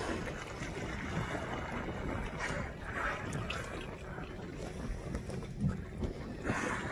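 Steady wind and open-water noise, with wind buffeting the microphone. Two short rushing, splash-like sounds come about three seconds in and again near the end.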